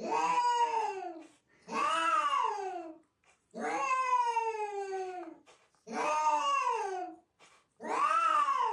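A cat giving long, drawn-out meows, five in a row about two seconds apart, each rising and then falling in pitch; the middle one is the longest.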